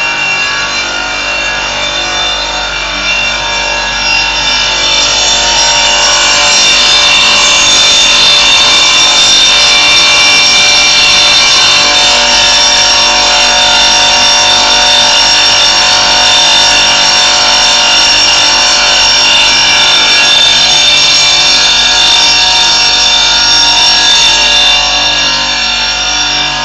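Motor-driven stone-working machine grinding a piece of stone held against its rotating spindle: a steady, loud grinding whine with several held tones. It grows louder a few seconds in and eases slightly near the end.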